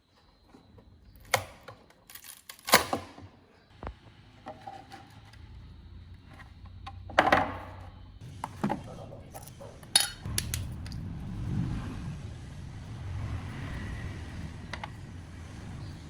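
Sharp clicks, knocks and clatters of small hard parts and tools being handled and set down, several seconds apart, followed by a low rumbling from about eleven seconds in.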